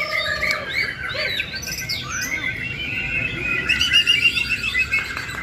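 White-rumped shama singing a long, varied song of clear whistles and quick chirps, with a fast run of repeated notes near the end.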